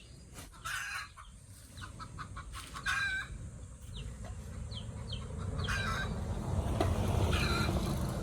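Chickens calling in short clucks and squawks, about four spread over several seconds, with a few fainter short chirps. A low rumble builds over the last few seconds.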